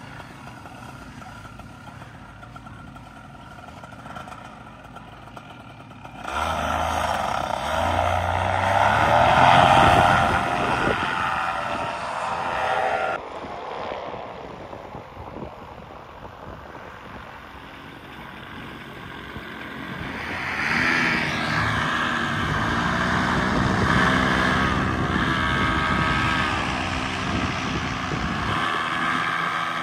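Powered paraglider and paratrike engines with their propellers running, in several short cuts: quieter at first, then a sudden louder engine about six seconds in that climbs in pitch, and a louder engine again from about twenty seconds on.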